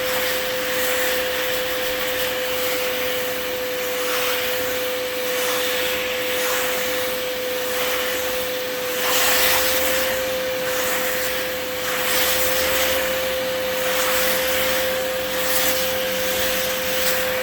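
Small Bissell spot cleaner running with a steady motor whine, its suction rushing louder in repeated strokes as the nozzle is worked over the mattress stain.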